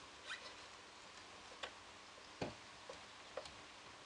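Faint, scattered clicks and light taps of small metal pen-kit parts being handled and fitted into a turned pen body on a wooden pen press, with one duller knock about two and a half seconds in.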